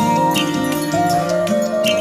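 Instrumental background music: a melody over chords and a bass line, with a light beat.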